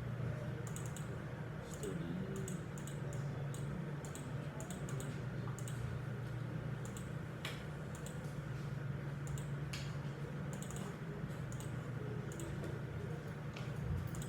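Computer keyboard and mouse clicks in irregular small clusters, over a steady low hum.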